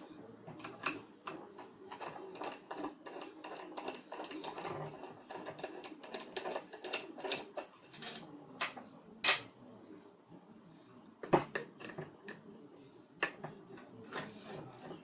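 Screws being undone from a ceiling fan's metal motor base: a busy run of small clicks, taps and scrapes of tool on metal, with a few sharper knocks about nine, eleven and thirteen seconds in.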